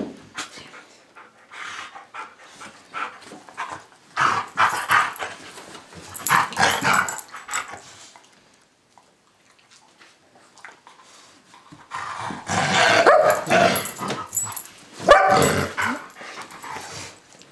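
Pit bull puppy and golden retriever play-fighting, growling and barking in two spells of loud bursts with a quiet stretch of a few seconds between them.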